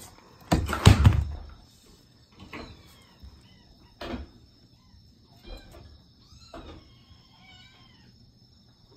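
Young kitten giving several thin, high mews while it is handled. A loud scuffing knock of handling comes about half a second in.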